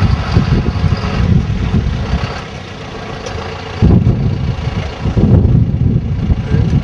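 Tractor engine running, with strong irregular low rumbling that swells twice in the second half.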